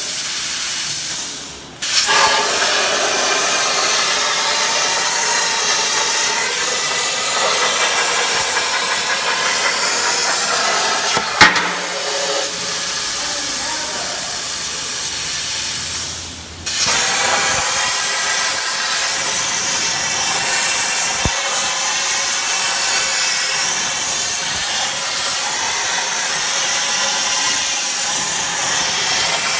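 Plasma torch of a 4-axis CNC pipe cutter cutting square steel tube with a 6.35 mm wall: a loud steady hiss with a faint whine. The sound dies away twice, around 2 s and 16 s in, and comes back abruptly, and there is a sharp crack about 11 s in.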